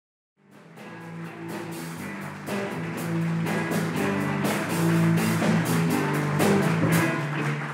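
Instrumental intro music with a steady beat, fading in about half a second in and fading down near the end.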